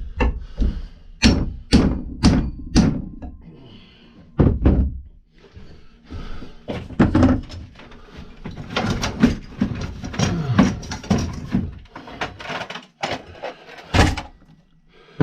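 Hammer striking a chisel again and again to drive the old wooden handle out of the eye of an axe head, in an irregular series of sharp metal-on-metal knocks that cluster near the start, through the middle and near the end.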